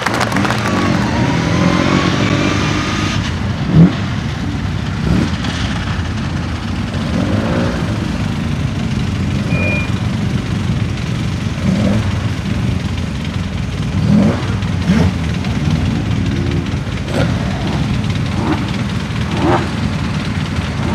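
Classic Mini's four-cylinder engine idling while waiting to launch, blipped repeatedly so the revs rise and fall every few seconds. One loud knock about four seconds in.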